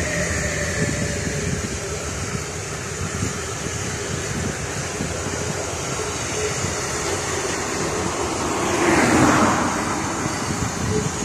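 Container freight train wagons rolling past on the track: a steady rumble of steel wheels on rail, swelling into a louder rush about nine seconds in.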